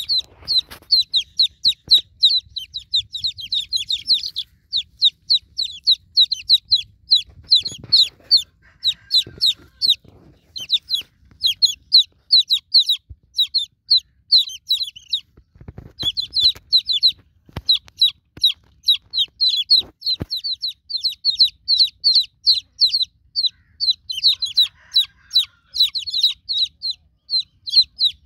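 Newly hatched chicken chicks peeping continuously, short high downward-sliding calls several a second, calling for the broody hen.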